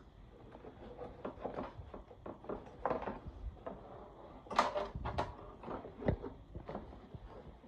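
Scattered light clicks and knocks of metal parts and tools being handled during motorcycle restoration work, a dozen or so spread over several seconds, the sharpest a pair about four and a half and five seconds in.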